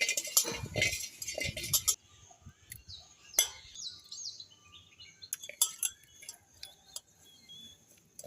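Kitchen utensils and dishes clinking and clattering for about two seconds, then a few scattered light clicks with birds chirping.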